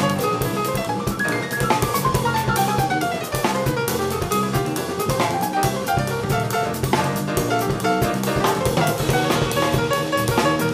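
Live jazz trio playing: grand piano over electric bass guitar and a Yamaha drum kit with busy cymbal and drum strokes. A falling run of notes sweeps down about two seconds in.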